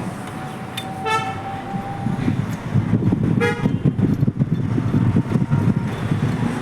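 Two short vehicle horn toots, one about a second in and another about three and a half seconds in. From about two and a half seconds, a motor vehicle engine runs with an uneven low rumble.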